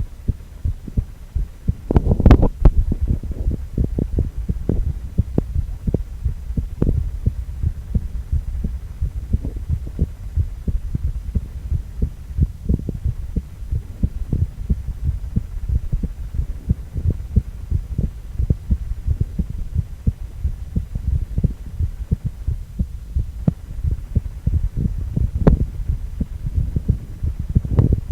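A man's heartbeat heard through a cardiac ultrasound: a steady run of low, pulsing beats over a low hum, loudest about two seconds in.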